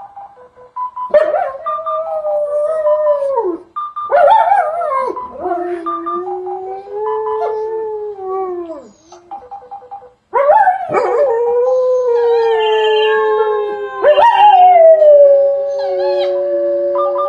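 Two German Shepherds howling in long, wavering howls that start about a second in, again around four and ten seconds, with two voices overlapping in the second half. In the pauses a short tune of steady notes plays.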